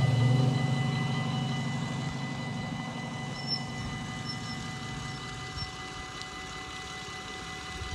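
Dutch level-crossing bell ringing steadily, with the low hum of the barrier drive motor as the red-and-white booms finish lowering. The hum fades out about five seconds in, once the barriers are down.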